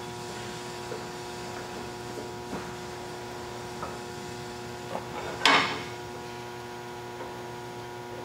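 Arbor press seating a clutch release bearing onto its collar: a few light metal taps as the parts are positioned under the ram, and one sharp metallic clunk about five and a half seconds in as the bearing is pressed home. A steady electrical hum runs underneath.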